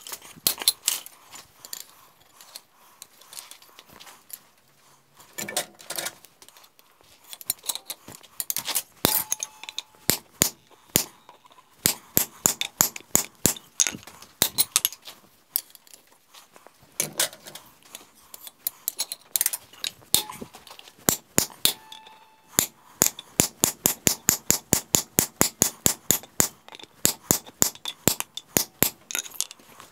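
Hand hammer striking a straight hot chisel into a red-hot square steel bar on an anvil, splitting the bar: sharp metallic strikes in short runs with pauses, then a fast steady run of about four blows a second near the end.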